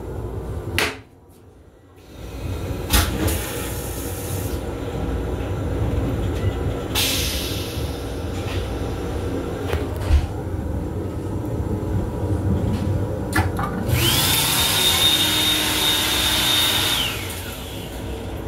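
Flush cycle of an M7 railcar toilet. A click as the flush button is pressed is followed by a short rush about seven seconds in. Then comes the loudest part, a whining motor-driven flush lasting about three seconds that winds down with a falling whine, over the steady running noise of the train.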